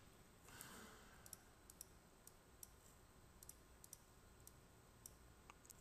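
Near silence with about a dozen faint, scattered clicks, most likely a computer mouse clicking through the CAM simulation controls.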